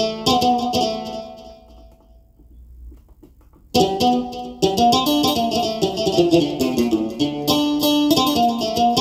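Plucked-string instrument patch played on a Korg Nautilus keyboard workstation. A phrase of quick notes rings out and fades almost to silence, then a fast run of notes starts again a little under four seconds in.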